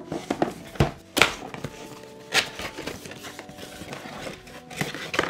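A cardboard camera box being handled and opened: a few sharp taps and knocks as the box is gripped and its top flap is pulled open, with light rustling in between.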